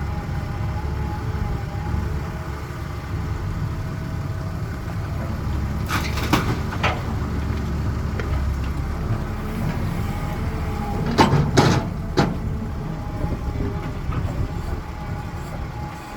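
Caterpillar 320 excavator's diesel engine running steadily, with two clusters of sharp clanks and knocks, three about six seconds in and three louder ones around eleven to twelve seconds in.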